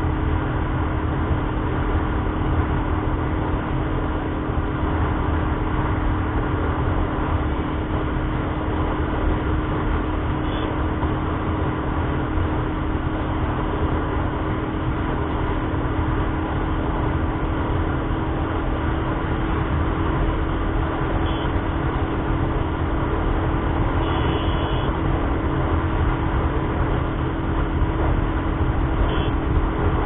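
Royal Enfield Thunderbird 350's single-cylinder engine running steadily at highway cruising speed, mixed with wind rushing over the handlebar-mounted camera's microphone.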